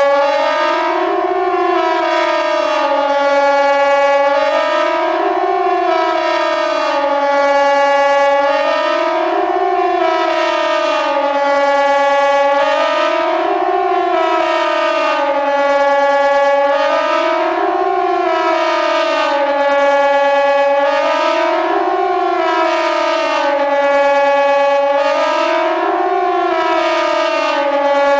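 Kockum KTG-10 pneumatic civil-defence siren sounding the Swiss general alarm: a loud, continuous two-tone wail whose pitch rises and falls about every two seconds.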